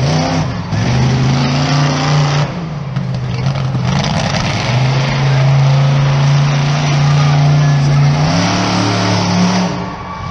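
Monster truck engine revving hard, its pitch rising and falling several times, holding a long steady high rev through the middle and climbing once more before easing off near the end.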